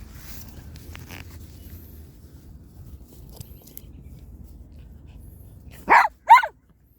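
Pomapoo giving two short, high-pitched yips in quick succession near the end, each rising sharply in pitch, over a faint low background hum.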